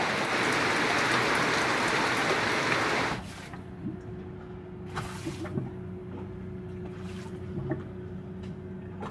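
Rain falling steadily on a boat's window. About three seconds in it cuts off suddenly to a much quieter low steady hum with a faint steady tone and scattered small ticks.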